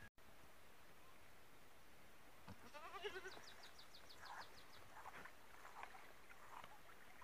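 A goat bleats once about three seconds in, a short quavering call, followed by a quick run of faint high ticks.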